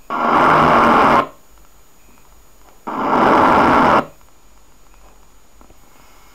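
Two loud, harsh electronic bursts, each about a second long and under two seconds apart, from a small speaker driven by a pocket MP3 player/radio: the data-burst header tones that open an emergency alert broadcast.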